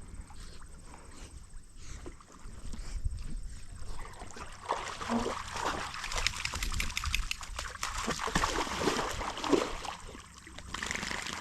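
A dog splashing and sloshing in water to cool off, the splashing growing loud about halfway through and easing off near the end.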